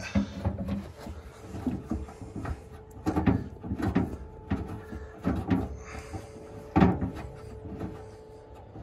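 Hands working a radio speaker's cable and fittings against the jeep's metal body: irregular knocks and clunks, the loudest nearly seven seconds in, with sleeve fabric rubbing close by and a faint steady hum underneath.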